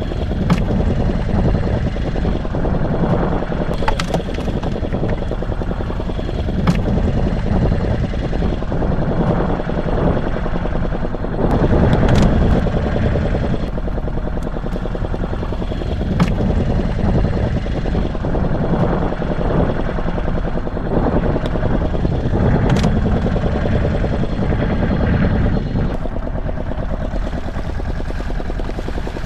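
Fishing boat's motor idling steadily, with a few sharp knocks and clicks scattered through.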